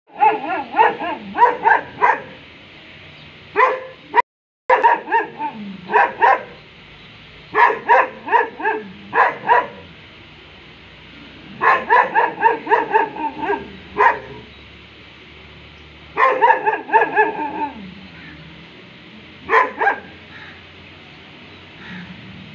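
A dog barking in repeated bouts of several quick barks, with pauses of a second or more between bouts. The sound cuts out briefly about four seconds in.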